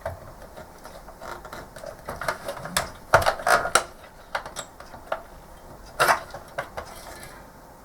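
Wiring-loom plugs and cables being handled and pushed onto connectors on a monitor circuit board: irregular plastic clicks and rattles, with a cluster of louder knocks about three seconds in and another about six seconds in.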